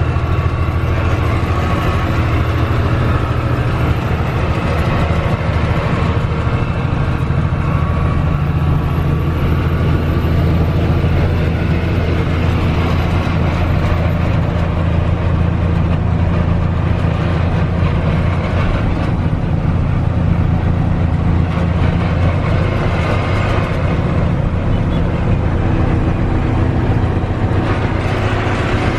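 1982 Mack R Series truck's diesel engine running steadily under load at cruising speed, heard from inside the cab as a constant low drone with road and wind noise.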